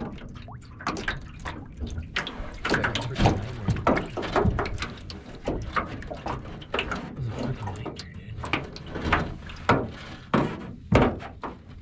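Water splashing and a run of irregular sharp knocks and rattles as a largemouth bass is landed with a net into a jon boat.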